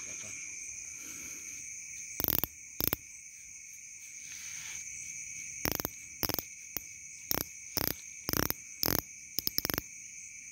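Night insect chorus of crickets, a steady high shrill trill, with about a dozen short, sharp clacks that start about two seconds in and come irregularly, bunching up towards the end.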